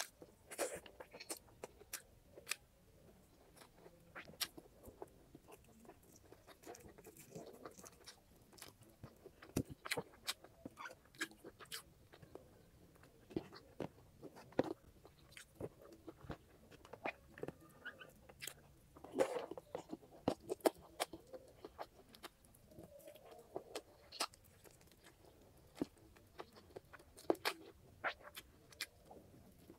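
Chewing and biting of grilled chicken close to the microphone: irregular wet smacks and crisp clicks of the mouth, some louder bites among softer chewing.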